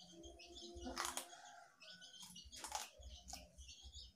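A person chewing raw leafy greens up close: crisp irregular crunching and wet mouth sounds, with louder crunches about a second in and again near three seconds.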